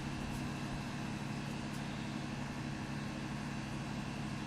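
A steady low mechanical hum over even background noise, with no shots or other sudden sounds.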